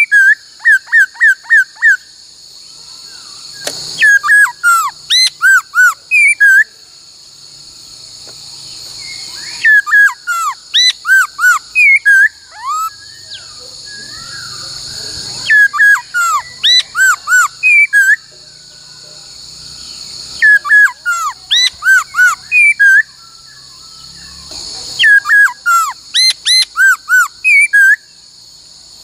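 A laughingthrush singing loud, clear whistled phrases: quick looping notes, about four a second, in bursts of two to three seconds that recur about every five seconds. A steady high hiss lies behind the song.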